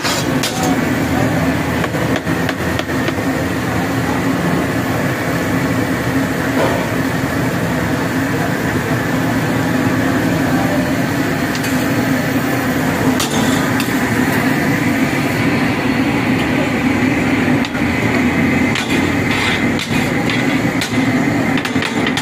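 Masala-coated fish deep-frying in a wide karahi of hot oil: a steady, dense crackling sizzle, with a few sharper clicks about halfway through and again near the end.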